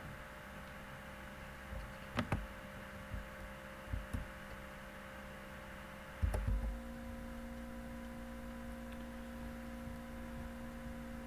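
Steady electrical hum with several faint level tones, broken by a few soft knocks about two and four seconds in and a louder thump a little after six seconds, after which the hum shifts to a new, higher tone.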